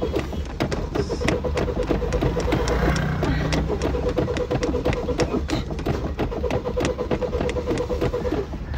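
Suzuki Wagon R's starter motor cranking the engine, a fast steady churning that goes on for several seconds and stops shortly before the end without the engine catching. The car has a no-start fault.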